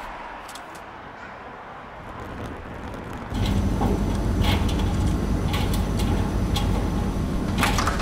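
Faint street noise, then about three seconds in an abrupt switch to the steady low hum of laundromat washing machines running, with scattered clicks and knocks. Near the end comes a louder clatter, likely the laundromat's glass sliding door.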